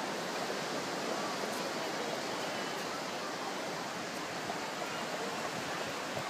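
Steady, even wash of surf on a beach, a hiss with no breaks, with faint voices now and then.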